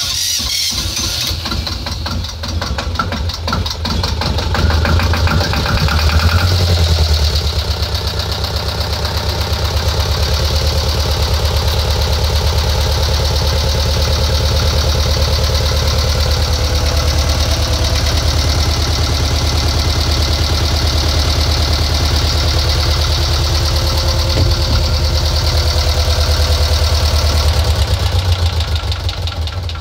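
Inboard marine diesel engine running at idle, a steady low chugging made of rapid even firing pulses; it is briefly louder about six seconds in, then settles and runs steadily.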